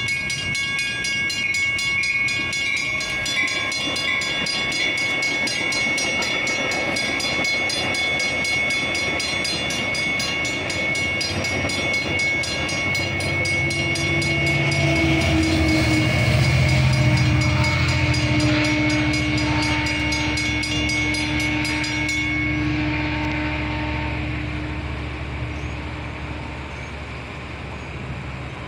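Railroad crossing bell ringing rapidly while a Metra commuter train of bilevel cars passes through the crossing, its rumble loudest about halfway through and then fading. The bell stops about three-quarters of the way in as the train clears.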